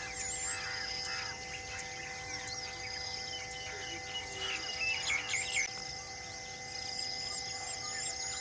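A chorus of birds chirping and calling, with a repeated rising-and-falling whistled phrase near the end, over a steady low drone.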